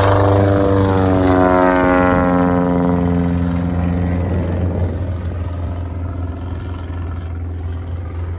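Remanufactured Bushliner Cessna 170 flying low past overhead, its engine and propeller note dropping in pitch over the first few seconds as it passes, then growing fainter as it climbs away.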